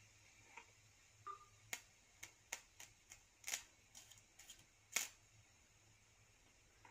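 Sharp electrical pops of a low-voltage DC arc sparking as a glowing electrode, powered by a bank of batteries, is touched against the work. There are about ten irregular snaps over some three seconds, the loudest about five seconds in.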